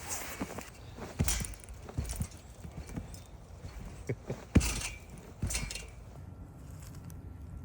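Footsteps: about seven uneven, dull steps, each with a crisp scuff. The loudest comes a little past halfway, and the steps stop near the end.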